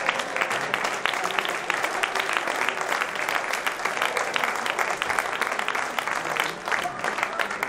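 Spectators clapping in a dense, steady round of applause for a football substitution, as one player leaves the pitch and another comes on.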